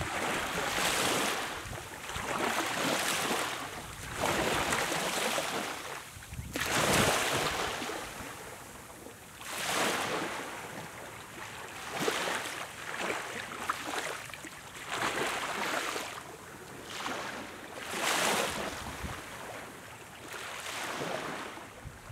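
Small waves lapping onto a sandy beach: a hiss that swells and falls away about every two seconds as each wave washes up the sand and drains back, with a light crackle of foam.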